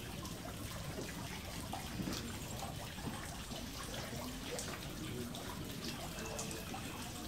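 Steady trickle of water from the garden pond, with a few faint small clicks.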